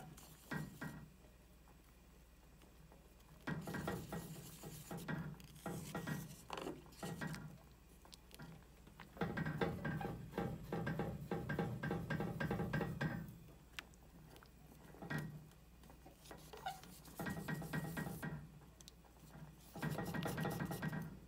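A person snoring in raspy, rattling breaths of one to four seconds each, with short quiet gaps between them.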